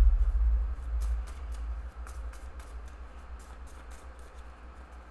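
A deck of tarot cards being shuffled by hand: a run of quick, irregular card clicks and slaps. A low thump comes at the start.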